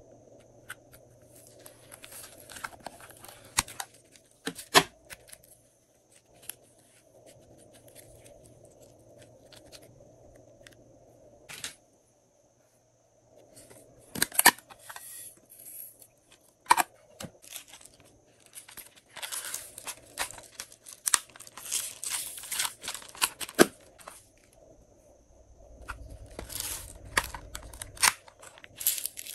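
Slime being squeezed and worked in plastic piping bags: crinkling plastic with sticky crackling and sharp clicks, coming in irregular bursts separated by quieter stretches.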